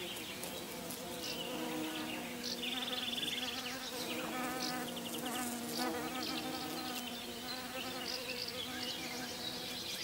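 Bees buzzing among apple blossom, a steady drone whose pitch shifts as they move about the flowers, with short high trills over it.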